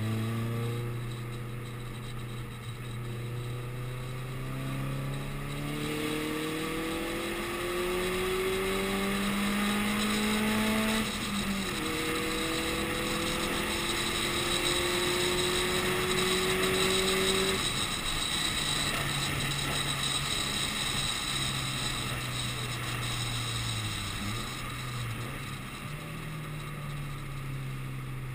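Subaru Impreza WRX STI's turbocharged flat-four engine heard from inside the cabin on track. The engine pulls hard, its pitch climbing and dropping back at upshifts about 6 and 11 seconds in. It then holds steady and eases off after about 17 seconds, under rising road and wind noise.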